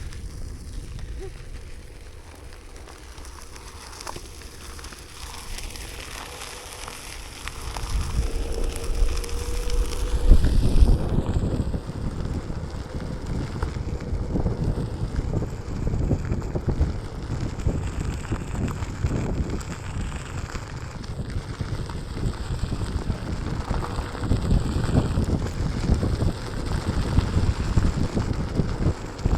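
Wind buffeting the microphone of a rider on a moving Onewheel: a rough, gusty rumble that grows louder about eight seconds in.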